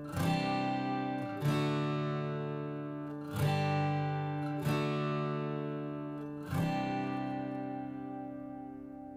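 Background music: slow acoustic guitar chords strummed about five times, each left to ring out and fade.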